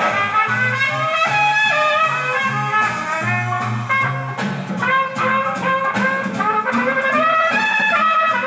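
Swing-style jazz with trumpet and brass playing a melody over a stepping bass line and a steady beat.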